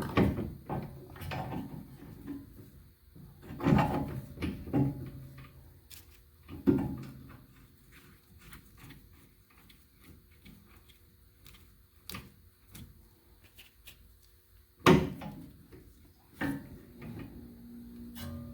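Metal steering parts and hand tools clinking and knocking as tie rods are fitted to the steering linkage. It is a series of separate knocks, some ringing briefly, the loudest about four, seven and fifteen seconds in.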